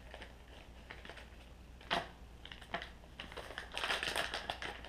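Plastic bait packets rustling and crinkling as they are handled and opened, with a sharp click about two seconds in and a louder run of crinkling near the end.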